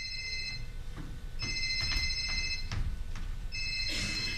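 Telephone ring sound effect: an electronic ring of several steady high tones in bursts of about a second and a half with short gaps. The end of one ring, a full ring, and the start of a third near the end: an unanswered call ringing through to an answering machine. A few faint knocks fall between the rings.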